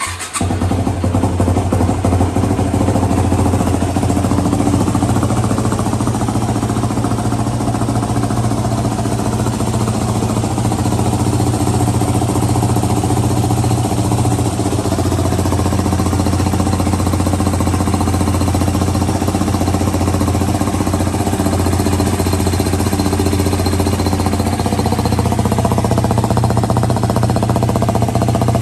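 Yamaha WR250X's 250 cc single-cylinder four-stroke engine starting and then idling steadily through a Delta Barrel 4 aftermarket silencer.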